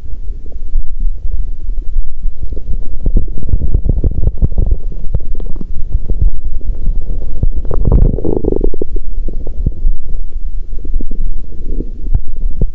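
Human stomach rumbling and gurgling: an irregular run of low gurgles and pops, with one louder, longer gurgle about eight seconds in.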